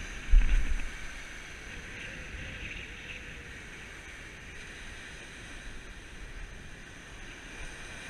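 Ocean surf breaking and washing up a sand beach as a steady rush, with wind buffeting the microphone in low gusts, strongest about half a second in.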